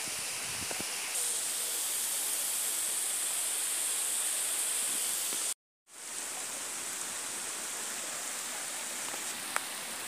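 Waterfall and rocky mountain stream rushing, a steady hiss of falling water that breaks off for a moment a little past halfway.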